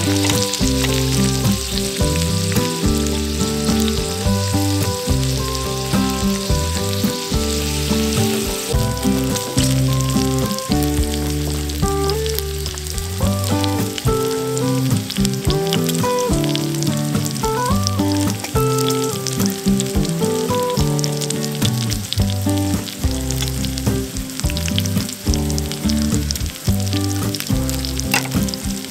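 Food frying with a steady sizzle and fine crackles, under background music with a stepping bass line.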